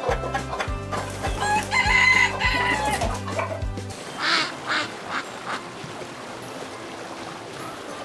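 Rooster crowing and hens clucking over background music with a steady beat. The music's bass stops about four seconds in, followed by four short calls.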